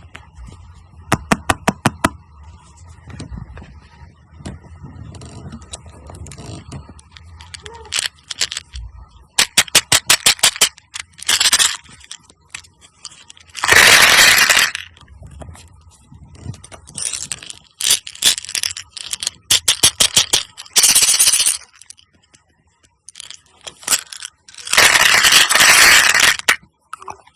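Slime being cut with a knife: quick runs of sharp clicks and several longer crackling crunches, the longest near the end.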